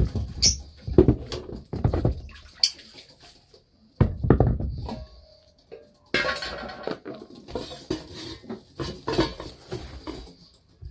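Small cage dishes knocking and clattering as they are handled, with short high chirps from cage birds.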